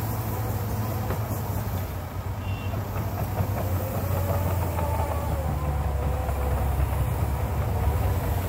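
Caterpillar 953D track loader working: its diesel engine running steadily with a strong low drone as it lowers the bucket and backs away from the truck, with a wavering whine from about three seconds in.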